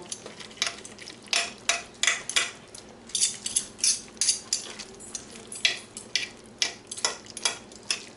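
Two metal forks clinking and scraping against the crock pot while shredding slow-cooked, tender chicken thighs in their sauce: irregular clinks and scrapes, about two a second.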